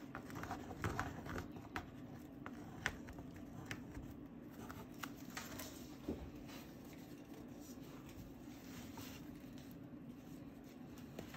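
Faint scratchy strokes and light taps of painting tools working on sketchbook paper, busiest in the first half, over a steady low hum.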